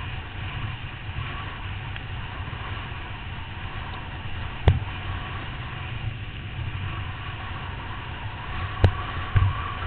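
Steady rushing wind on a helmet-mounted camera, mixed with water spraying off a kneeboard towed at speed, with a sharp knock about halfway through and two more near the end.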